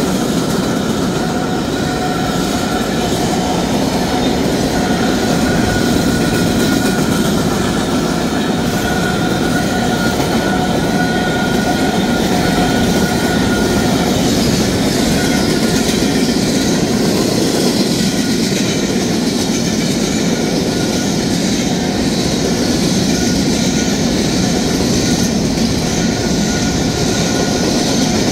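Freight cars of a BNSF slab train rolling past close by: a steady, loud noise of wheels on rail. A thin high tone runs over the first half.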